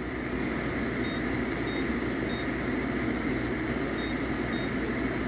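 SereneLife 8000 BTU portable air conditioner running with a steady fan hum. Faint short high-pitched tones sound on and off over it.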